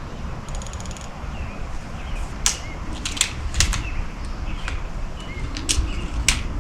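A quick run of small, even clicks from a rifle scope's adjustment turret being dialled, about half a second in. This is followed by a handful of sharper separate clicks and snaps as the .22 pellet rifle is handled.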